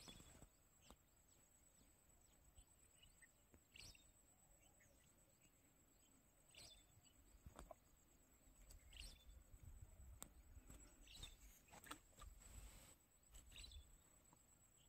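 Near silence: faint outdoor ambience with a steady high-pitched tone and a few faint, short bird chirps every couple of seconds.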